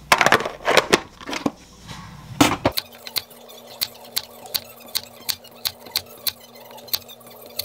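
Clatter of apple pieces and a plastic lid being set into a plastic food tub, then a kitchen knife slicing an apple thinly on a wooden cutting board, each cut ending in a sharp tap of the blade on the board, about three a second.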